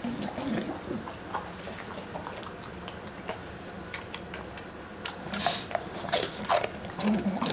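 British bulldog chewing and crunching pork crackling, with sharp crunches that come thicker and louder about five seconds in.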